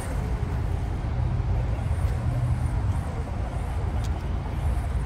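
Traxxas XRT electric RC monster truck running across grass at a distance, its motor and tyres faint under a steady low rumble.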